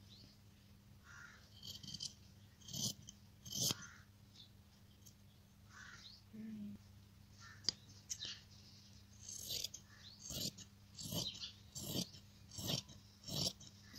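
Short rasping strokes of a tool worked against cotton fabric: a few scattered at first, then an even run of about one every two-thirds of a second near the end, over a steady low electrical hum.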